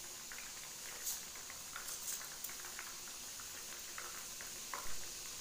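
Battered tempeh pieces deep-frying in a small pan of hot oil: a steady sizzle of bubbling oil with scattered small pops and crackles.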